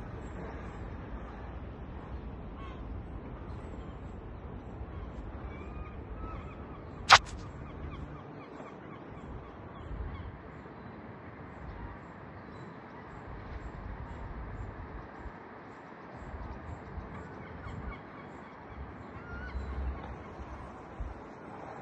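Outdoor ambience with wind rumbling on the microphone and a few faint bird calls. One sharp, loud click about seven seconds in.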